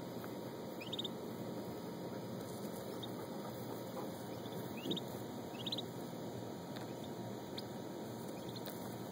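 Turkey poult peeping: short high squeaks in quick clusters of three or four rising notes, repeated irregularly several times, over a steady low hiss.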